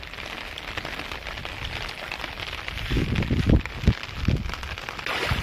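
Steady hiss of rain falling on a flooded paddy field, with a few low thumps about three seconds in.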